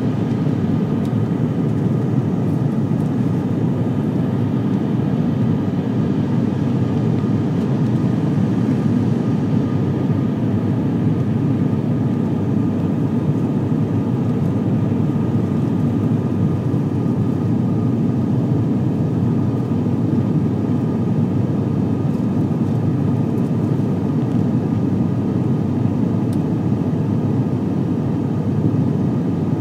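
Steady drone of an ATR 72-500's twin turboprop engines and propellers in flight, heard inside the passenger cabin. It is a low, even rumble with a faint steady hum above it.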